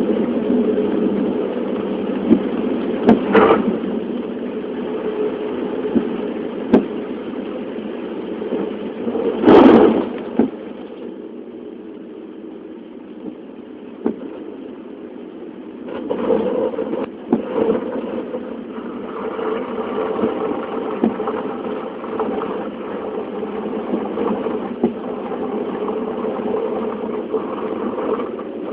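Steady, even hum of an engine or motor running, broken by several sharp clicks and one louder burst about ten seconds in.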